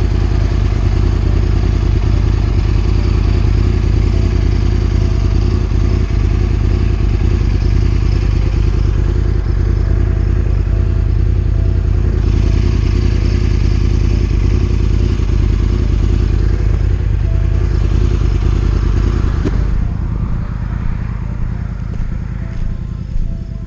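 A motorcycle engine running at a steady speed under a heavy low rumble. About twenty seconds in it drops away and the sound becomes quieter and less even.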